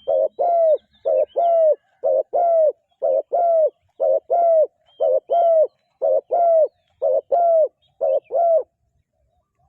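Spotted dove cooing in a fast, even series of two-note phrases, a short note and then a longer, slightly falling one, about one pair a second, stopping near the end. Faint high chirps from other small birds sound over it.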